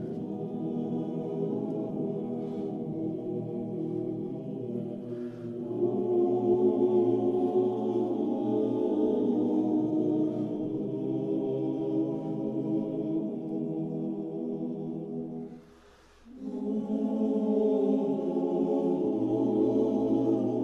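Background choral music: a choir singing slow, held chords, with a brief break about three quarters of the way through.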